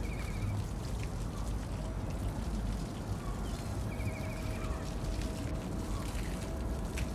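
Steady outdoor ambience with an even wash like running or trickling water, and a short, fast, high chirping trill twice: once at the start and once about four seconds in.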